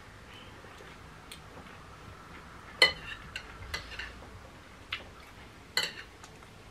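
Fork and spoon clinking against a plate while eating: a few light taps, with two sharper clinks that ring briefly, about three seconds in and near the end.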